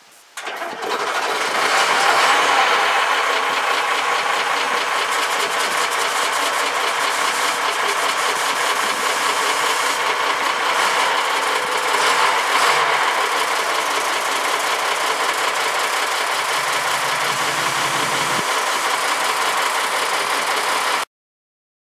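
Steyr 680 army truck's six-cylinder diesel starting at once after four months standing, catching with no long cranking, then running steadily with diesel clatter. The sound cuts off suddenly near the end.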